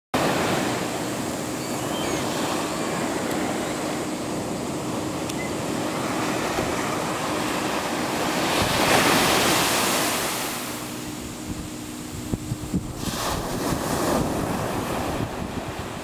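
Small sea waves breaking and washing up a sandy beach, a continuous surf rush; one wave swells loudest about nine seconds in, then it eases.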